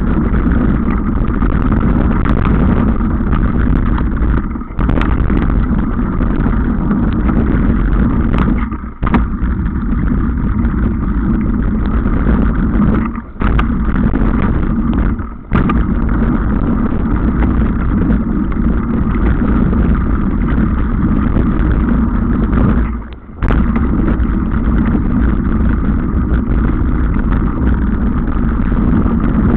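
Wind rushing over the microphone together with the rumble and rattle of a mountain bike riding fast down a dirt trail; the noise drops briefly about five times.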